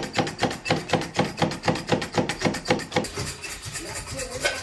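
Zyliss plunger chopper being pumped rapidly to mince garlic: a fast, even run of plastic clacks, about five or six a second, that stops about three seconds in.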